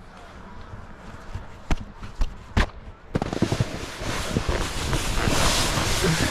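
Three sharp knocks, then from about three seconds in a snowboard rides over soft, bumpy snow: a loud, steady rush of board and wind on the microphone, with many small thumps.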